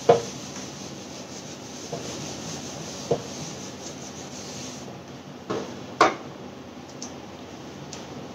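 Whiteboard eraser rubbing back and forth across a whiteboard, a steady scrubbing hiss that stops about five seconds in. A few short knocks follow, the loudest a sharp click about six seconds in, as the eraser is put down and a marker taken up.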